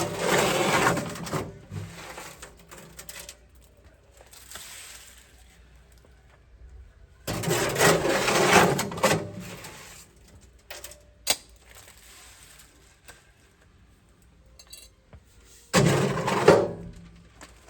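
Wet concrete mix being worked and poured: three bursts of gritty scraping and sloshing, each one to two seconds long, at the start, about seven seconds in, and near the end, with a few light knocks between them.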